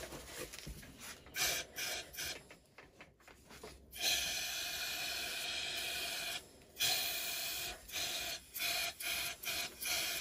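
Eastwood DIY powder coating gun spraying powder onto the part: compressed air hissing out of the gun in bursts, with a few short puffs, then a long blast of about two and a half seconds, another of about a second, and more short puffs near the end.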